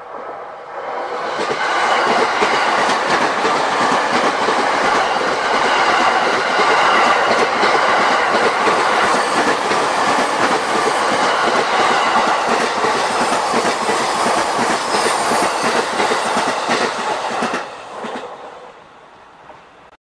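E231 series commuter electric train passing close by at speed: a steady rush of wheels and running gear, with rapid clickety-clack over rail joints. The sound swells about a second in, holds for some sixteen seconds as the cars go by, then falls away quickly as the last car passes.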